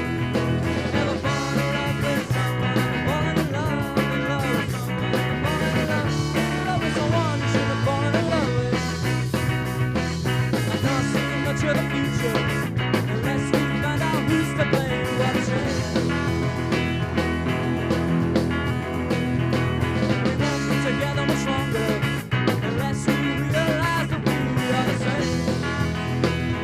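Rock band playing a punk-rock song live: guitars, bass and drums, with a lead voice singing in stretches, clearest over the first several seconds and again near the end.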